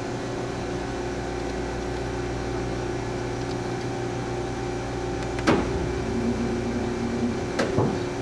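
Mori Seiki NH4000DCG horizontal machining center running with a steady mechanical hum while its pallet table indexes. About five and a half seconds in comes a sharp clunk, followed by a short steady whine from a drive, then a couple more clicks near the end.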